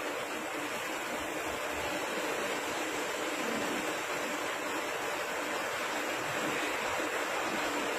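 Flood coolant spraying inside the enclosure of a Makino A-55 CNC horizontal machining center while the spindle runs a cutting tool: a steady rushing hiss like running water, heard through the machine's closed window.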